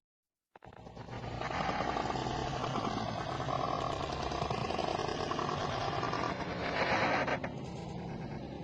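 A person snoring with a fast, fluttering rattle: one long drawn snore of about five seconds, a brief dip, then a shorter loud snore before it eases off.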